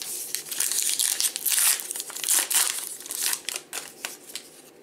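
A trading-card pack wrapper being torn open and crumpled: a dense, crackling crinkle that dies away in the last second.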